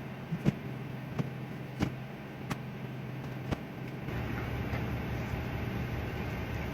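A vehicle engine running steadily, with a handful of sharp knocks and clicks in the first few seconds.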